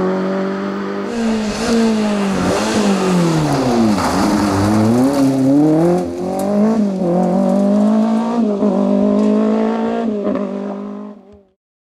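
Rally car engines revving hard on a special stage, the pitch climbing and dropping again and again through gear changes and lifts as the cars drive off. The sound fades out shortly before the end.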